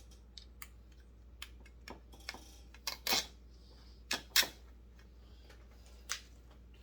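Scattered light clicks and ticks of small metal parts and tools being handled while a bolt is worked at a chainsaw's muffler bracket, with a couple of louder scraping clicks about three and four and a half seconds in.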